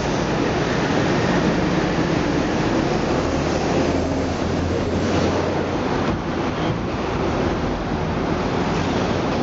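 Steady outdoor roar of wind buffeting the microphone over street traffic noise.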